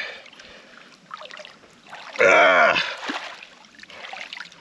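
Water sloshing and splashing around a person wading in a shallow river, with dripping as a lost shoe is pulled up out of the water. About two seconds in comes a short, loud vocal grunt.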